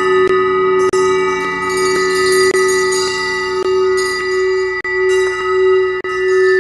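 Music of long, overlapping ringing bell tones, held steady, cut by a few brief dropouts.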